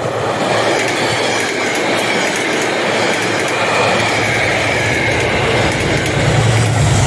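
Metro-North push-pull commuter train passing at speed, cab car leading: wheels clattering over the rails with a thin high wheel squeal. A deep diesel engine rumble grows loud near the end as the trailing diesel locomotive comes by.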